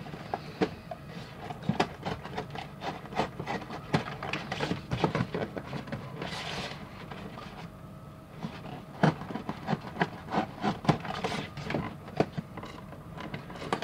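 Cardboard blind boxes being handled and opened by hand: an irregular run of small taps, clicks and rubbing of card on card, with a longer scraping rustle about six seconds in.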